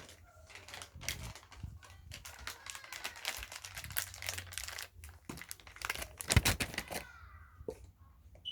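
Plastic baby-wipes packet crinkling and rustling as it is handled and wipes are pulled out, in irregular crackles, with one louder knock about six seconds in.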